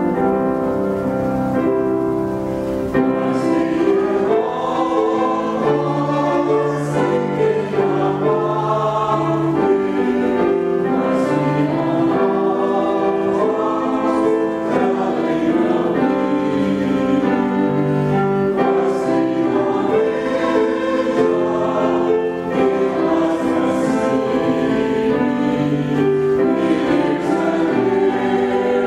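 Small mixed church choir singing an anthem in several parts, with piano accompaniment.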